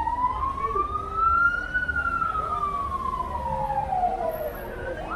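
Emergency vehicle siren sounding one slow wail, rising in pitch for about two seconds and then falling for about three, over a low rumble of street traffic.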